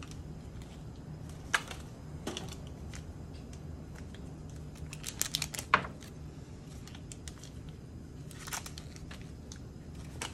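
Sterile packaging crinkling and peeling open, with scattered light clicks and taps as small plastic needleless IV connectors are dropped onto a paper drape, a cluster of them just past halfway. Under it runs a steady low hum.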